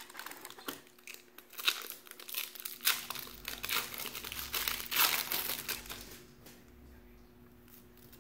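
A foil trading-card pack wrapper being torn open and crinkled by hand, in a run of sharp crackles that dies down about six seconds in as the cards are taken out.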